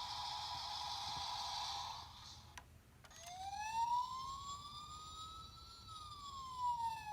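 A steady high tone that stops about two seconds in, a click, then a siren wailing, its pitch slowly rising and then falling.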